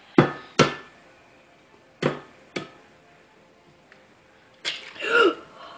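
An egg tapped against the rim of a glass mixing bowl to crack it: four sharp knocks in two pairs, about a second and a half apart. Near the end comes a brief wordless vocal sound.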